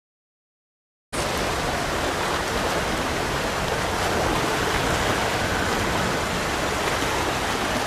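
Rushing water of a fast-flowing irrigation canal, a steady, even rush that starts suddenly about a second in.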